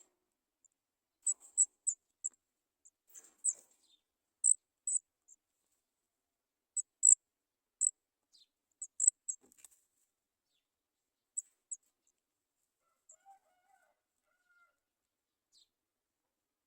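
Sooty chat nestlings giving short, very high-pitched cheeps in irregular runs while waiting to be fed, the calls thinning out in the second half.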